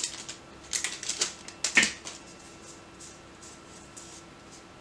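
Foil trading-card booster pack wrapper crinkling as it is pulled open and the cards are drawn out. There are a few sharp crackles in the first two seconds, the loudest near the two-second mark, then only faint rustling of the cards being handled.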